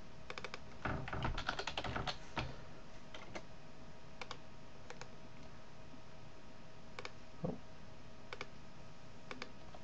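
Typing on a computer keyboard: a quick run of keystrokes between about one and two and a half seconds in, then scattered single clicks about once a second.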